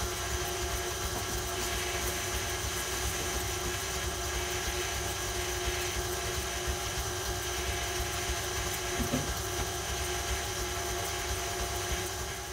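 Electric stand mixer running at a steady speed, its wire whisk beating cake batter in a stainless steel bowl: a constant motor hum with several fixed tones that cuts off at the very end.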